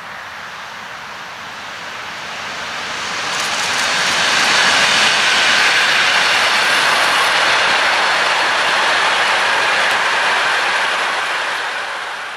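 Freight train approaching and passing: an electric locomotive hauling a long intermodal train of truck trailers on pocket wagons, heard as a steady rushing of wheels on rail that swells over a couple of seconds, holds, and fades near the end.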